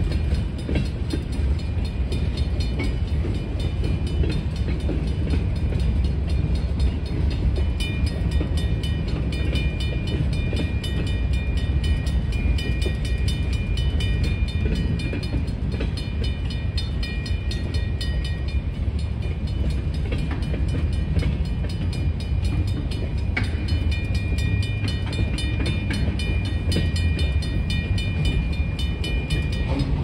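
Freight train of tank cars rolling past: a steady low rumble of wheels on rail, with thin high-pitched tones that come and go.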